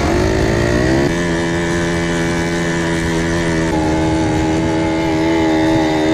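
Quad bike engine speeding up over the first second, then running steadily under the rider, with small steps in pitch about a second in and again near four seconds. Wind buffets the microphone underneath.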